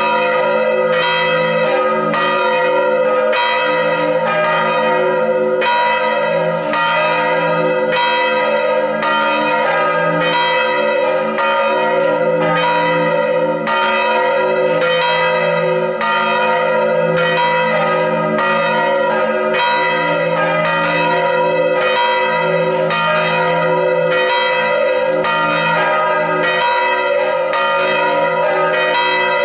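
Three church bells cast in 1640, 1838 and 1851, tuned to D#, A# and B, swinging in full peal (volée). Their clapper strokes come about once a second and overlap, so the ringing never dies away.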